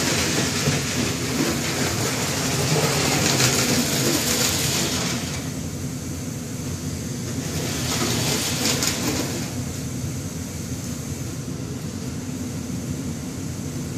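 Marx toy electric locomotive and New York Central tender running around a toy train track, the motor whirring and the wheels clattering on the rails. It is louder for the first five seconds, drops, swells briefly near the middle, and runs fainter toward the end as the train circles the layout.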